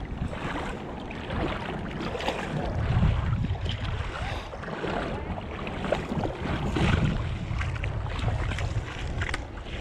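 Wind buffeting the microphone in gusts, over water sloshing and splashing in the shallows.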